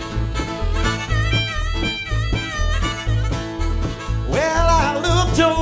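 Acoustic country/bluegrass band playing: harmonica lead over guitar, banjo and a steady alternating bass line. A lead singing voice comes in a little after four seconds in.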